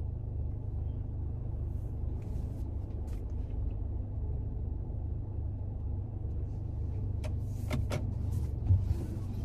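Low, steady rumble of a sedan's engine and running gear heard from inside the cabin, with a few faint clicks and a brief thump near the end.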